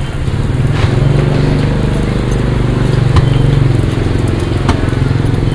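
A small engine running steadily, its hum swelling about a second in, with a few sharp taps over the street noise.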